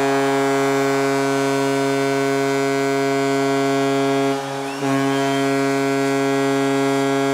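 Arena goal horn sounding for a home-team goal: one steady, low pitched horn tone, with a short break about four and a half seconds in before it sounds again.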